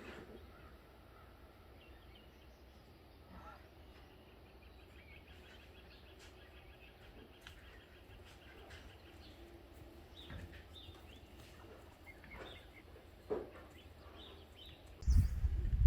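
Quiet rural ambience with faint, distant bird calls: short chirps, and a fast trill that runs for a few seconds midway. About a second before the end, a loud low rumble comes in.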